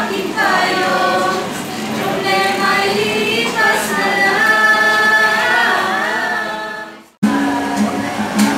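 A mixed group of young voices singing a Filipino pop song in unison, with an acoustic guitar. About seven seconds in the sound fades out and cuts off, and another song with guitar and voices starts abruptly.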